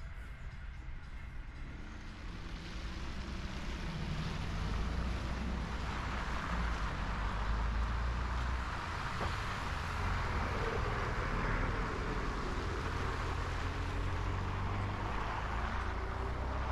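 Road traffic on a snowy, slushy street: engine rumble and tyre hiss from passing vehicles, growing louder a few seconds in and staying up.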